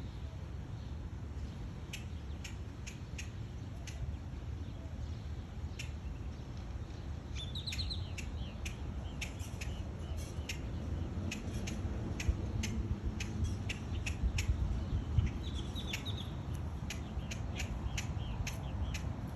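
Small birds chirping: many short, sharp chips through the whole stretch, with a brief warbled call about eight seconds in and again about fifteen seconds in. A low rumble runs underneath, with a few louder bumps near the middle.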